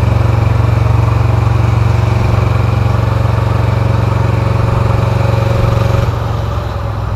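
Heavy equipment engine running steadily, with a deep, even note; about six seconds in it eases to a slightly quieter, changed note.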